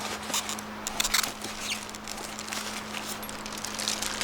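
Packaging rustling and crinkling as compressor accessories are lifted out and unwrapped: a run of short, scratchy rustles over a faint steady hum.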